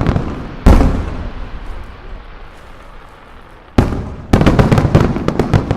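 Aerial fireworks shells bursting. A heavy boom comes about half a second in and rumbles away over several seconds. Near the end a second boom is followed by a third and a quick run of sharp cracks.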